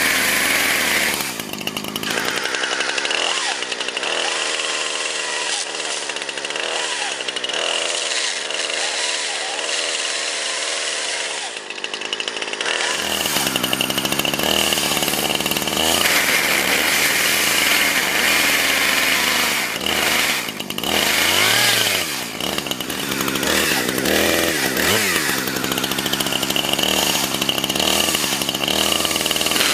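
Two-stroke chainsaw running hard, its engine pitch rising and falling as it is revved while cutting through a smartphone.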